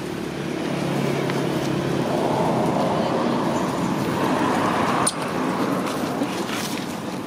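A motor vehicle's engine running close by, with a steady low hum that swells and then drops sharply about five seconds in.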